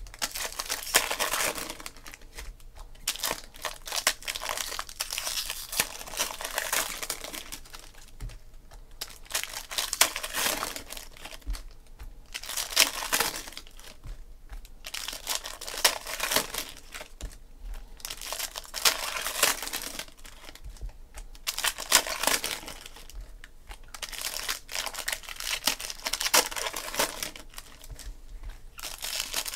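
Foil trading-card packs being crinkled and torn open, with the cards inside handled, in repeated bursts every second or two.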